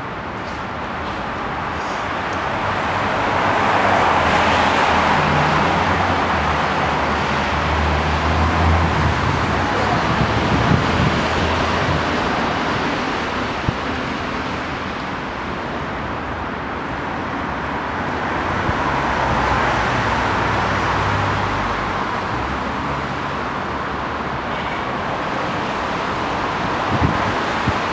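Road vehicle noise: a steady rushing hiss with a low hum beneath. It swells over the first few seconds, eases off past the middle, then swells again.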